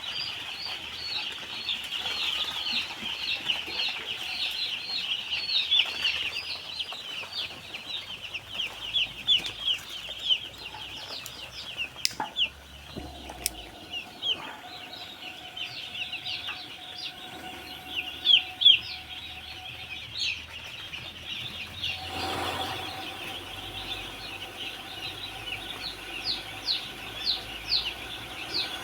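A brood of baby chicks peeping continuously, many short high chirps overlapping each other.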